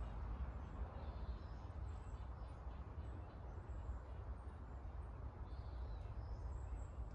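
Quiet outdoor background: a steady low rumble and hiss, with a few faint bird calls now and then.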